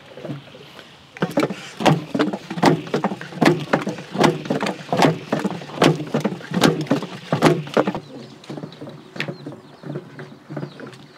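A long wooden paddle stirring thick haleem paste in a large pot, knocking and scraping against the pot in a quick rhythm of about three strokes a second. The stirring eases off about eight seconds in.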